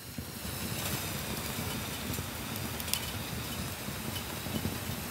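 Wood fire burning in a small folding box stove under a pot of boiling water: a steady rushing, rumbling burn with a few sharp crackles, the clearest about three seconds in.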